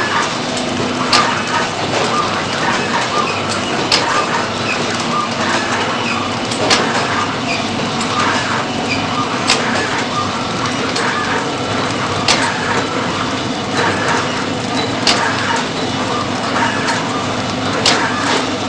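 Automatic powder sachet packaging machine running: a steady mechanical hum with light rhythmic clattering, and a sharp click about every three seconds as it cycles.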